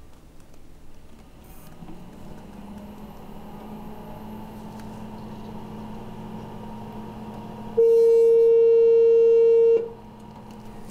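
Power Mac G4 Quicksilver starting up, its hum rising and settling into a steady drone. About eight seconds in, a loud steady beep lasts about two seconds and cuts off: the long tone that signals the firmware update is under way and the programmer button can be released.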